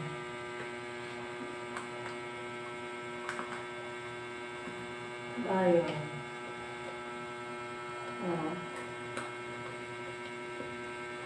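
Steady electrical hum with many even overtones, with a few faint clicks and handling sounds, broken by a short spoken word about halfway through and a brief murmur later.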